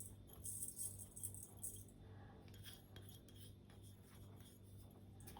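Faint gritty rustling of demerara sugar being tipped into a mixing bowl of flour, with a few soft ticks, over a low steady hum.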